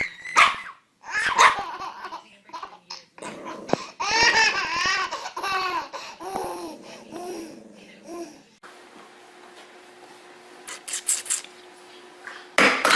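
A baby laughing and babbling in repeated bursts. About two-thirds of the way through the sound cuts abruptly to a quieter steady hum with a few faint clicks, and a short loud burst comes near the end.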